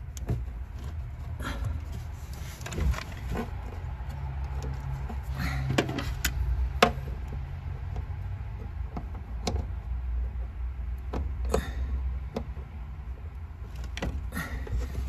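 Scattered clicks, knocks and small rattles of hard plastic and metal parts being handled as an old fuel pump assembly is worked out of its tank opening, over a steady low hum. The sharpest click comes about seven seconds in.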